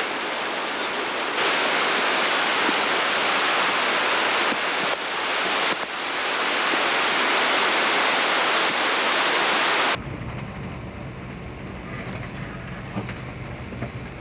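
Rushing floodwater, a loud steady roar of churning whitewater. About ten seconds in it cuts to a quieter low hum inside a moving car.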